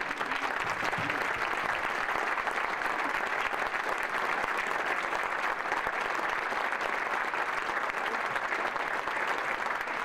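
Audience applauding, a steady dense clapping that holds at an even level throughout.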